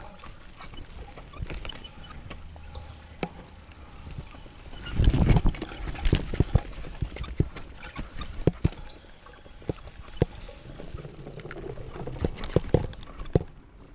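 Mountain bike rattling down a rough dirt trail: irregular sharp knocks and clatter from the frame, chain and suspension over bumps and roots, over a low rumble of tyres and wind. A louder stretch of rumbling comes about five seconds in.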